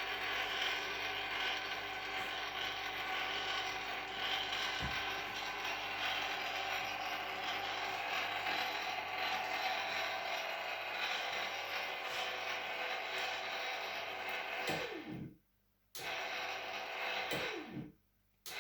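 The AR-500 antenna rotator's geared motor runs steadily as it turns the antenna back toward 0 degrees. Near the end it winds down in pitch and stops twice for about a second, starting up again each time.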